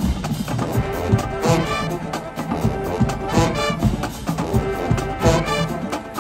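Marching band playing live: brass horns, sousaphones included, carry the tune over a steady drum beat.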